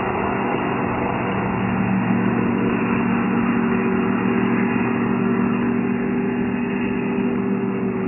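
Motorboat engine running steadily at high speed, mixed with the rush of water and spray from the hull.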